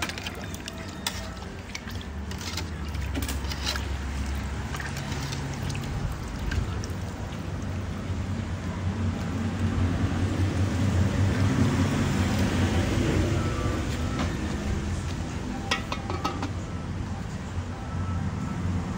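Metal ladle stirring braised pork and bamboo shoots in a large aluminium pot, with scattered clinks and scrapes against the pot and liquid sloshing, over a steady low rumble. Near the end the aluminium lid is set on the pot.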